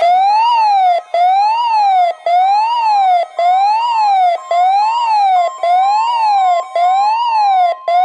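Recorded siren sound effect in a NOAA Weather Radio weekly test broadcast, played through a Midland weather radio's speaker. It rises and falls in pitch about once a second, with a brief gap between each cycle.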